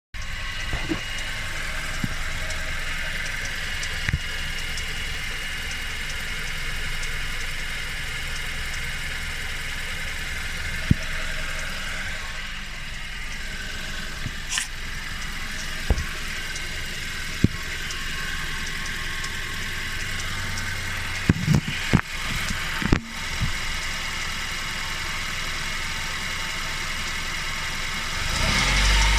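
Car engine idling steadily, with a steady high-pitched tone over the running and a few sharp clicks at irregular moments, several of them close together about two-thirds of the way in. The uploader calls the noise weird and cannot identify it.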